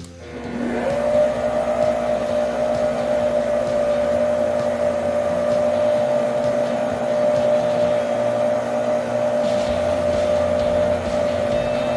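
Electrolux EKM3407R stand mixer's motor starting on speed 1, the lowest of its six speeds: a whine rising in pitch for under a second, then running steadily at an even pitch. It measures about 71 dB at 30 cm.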